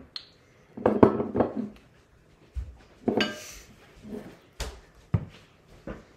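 Kitchen clatter from bowls and utensils being handled and set down on a bench, with a cupboard or drawer knocking. The sound comes as a run of separate knocks and short rattles, loudest about a second in and again about three seconds in.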